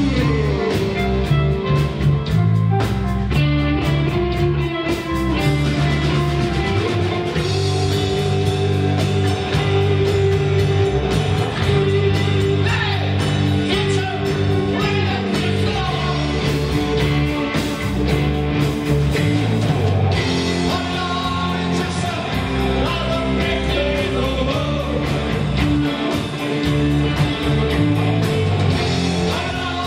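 Live rock band playing through amplifiers: electric guitars, bass guitar and a drum kit.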